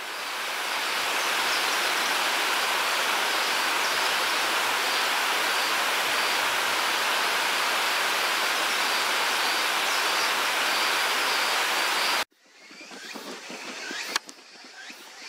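Rushing water, a loud steady hiss like a weir or rapids, that cuts off abruptly about twelve seconds in. After it comes much quieter outdoor ambience with a couple of sharp clicks.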